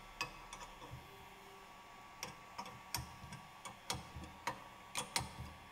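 Light, sharp metallic clicks at irregular spacing, a few each second, from a wrench working the bolts of a bearing separator clamped around a crankshaft bearing, tightening the jaws under the bearing.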